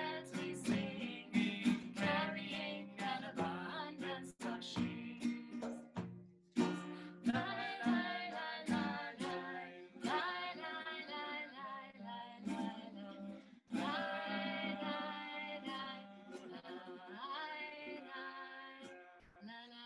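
A woman singing a song to guitar accompaniment, the guitar plucked or strummed under a sustained, melodic vocal line.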